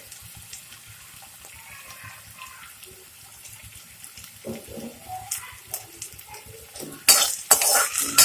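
Chopped onion and green chillies frying gently in hot oil in a kadhai, then a spoon scraping and clattering against the pan in quick strokes as they are stirred, starting about seven seconds in.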